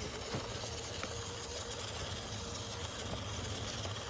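Small RC crawler's electric motor running steadily: a thin even whine over a low hum, with a few faint ticks.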